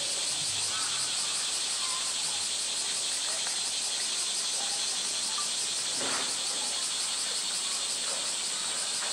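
Cicadas in chorus: a steady, dense high-pitched buzz with a fine fast pulse, under faint human voices and a single soft knock about six seconds in.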